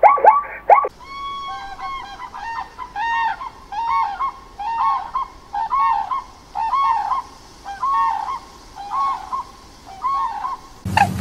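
Common crane calling: a series of trumpeting, arching notes, about one a second, some in pairs. In the first second there is a quick run of short falling yelps from zebras.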